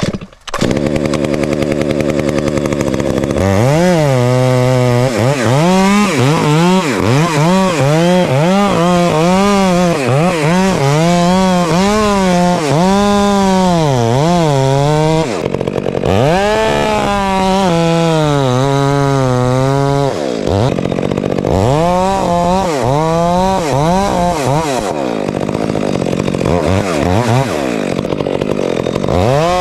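Big Stihl chainsaw with a 36-inch bar: it idles steadily for the first few seconds, then runs at high throttle, its pitch swinging up and down again and again as it cuts into a thick, hollow trunk.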